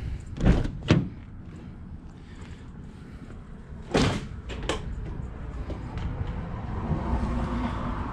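Door of a Mercedes-Benz Sprinter van being opened: sharp clunks of the latch and door, two about half a second in and two more about four seconds in, over a low steady rumble.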